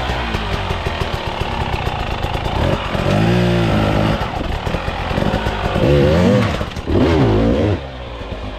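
KTM 300 two-stroke dirt bike revving hard in short bursts while it climbs a rocky creek bed, the engine note rising and falling sharply about three, six and seven seconds in.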